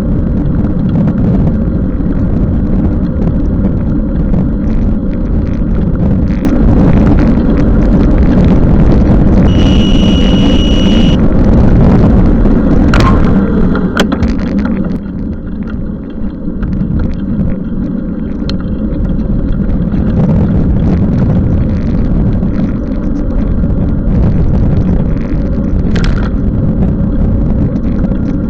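Steady loud rumble of wind and road noise from a bicycle being ridden in the rain, picked up by a camera on the ride. About ten seconds in there is a short, steady high beep lasting over a second, and a few sharp clicks follow a few seconds later and again near the end.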